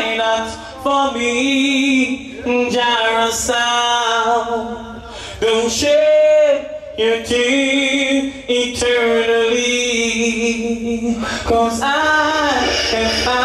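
A song played over the sound system, carried by a man's singing voice that holds and bends long notes, with little accompaniment heard beneath it.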